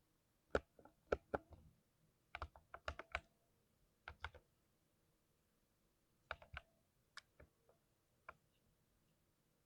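Typing on a 60% mechanical keyboard with lubed switches: short irregular bursts of keystrokes with pauses between, thinning to single key presses near the end.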